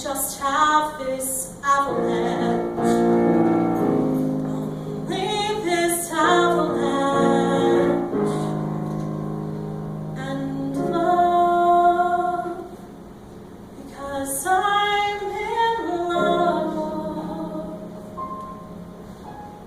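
A woman singing a musical theatre song, in phrases with long held notes, with a softer passage about two thirds of the way through.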